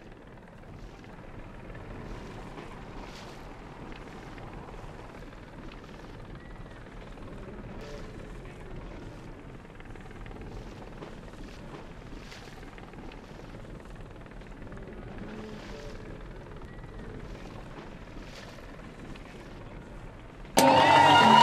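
Steady engine rumble and wind noise on the water, with faint hissing gusts. Near the end, loud music cuts in abruptly.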